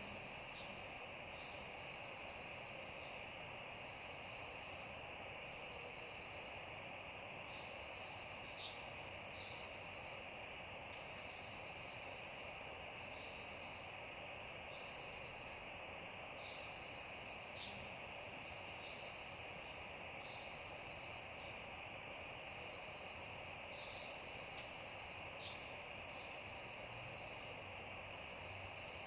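Night insect chorus: crickets trilling steadily at a high pitch, with a regularly pulsing call above the trill and a few short sharp chirps now and then, over a soft even hiss.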